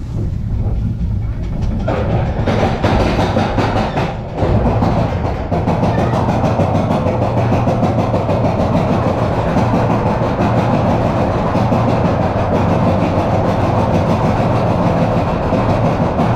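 Vekoma mine train roller coaster running along its steel track: a steady rumble and rattle of wheels on rail, growing louder and fuller about two seconds in and then holding steady.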